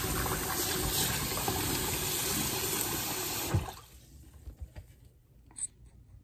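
Kitchen tap running into a steel pot of diced potatoes as they are rinsed by hand, the water splashing steadily. It stops suddenly about three and a half seconds in with a small knock, and a few faint clicks follow.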